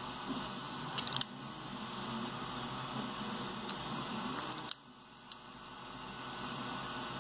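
A few light clicks and taps of hard plastic parts and a small screwdriver being handled and fitted together, over a steady hiss. The loudest click comes a little before five seconds in.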